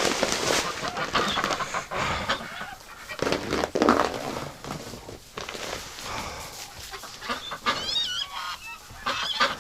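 Ducks and geese calling and chattering in a barn, with a few short, wavering higher calls near the end. Dense rustling noise fills the first few seconds.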